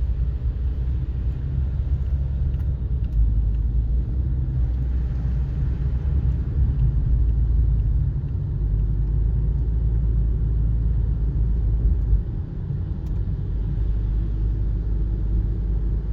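Steady low rumble of a car driving, engine and tyre noise heard from inside the cabin, dipping a little about twelve seconds in.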